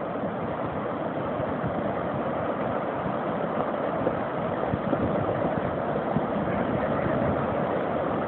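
Muddy rain runoff rushing through an eroded gravel channel in churning standing waves: a steady, even rush of turbulent floodwater.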